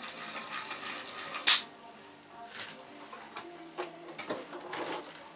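Tools and parts being handled during an engine installation: scattered light clicks and knocks, with one sharp, much louder clank about a second and a half in.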